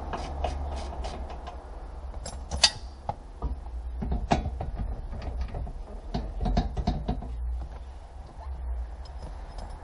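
Hand work on a stripped car dashboard frame and heater-evaporator housing: irregular light clicks, taps and knocks of tools and plastic parts, with a sharper click a little over two and a half seconds in, over a steady low hum.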